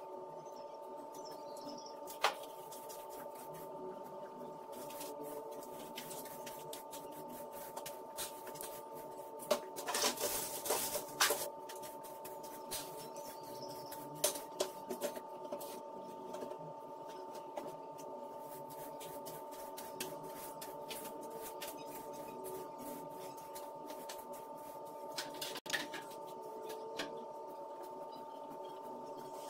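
A steady hum runs throughout, with scattered clicks and knocks from household cleaning and a short burst of scraping noise about ten seconds in.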